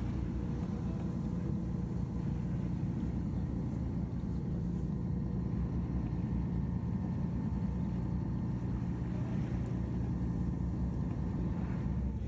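Boat engine running at a steady speed, a low drone, with water washing along the hull.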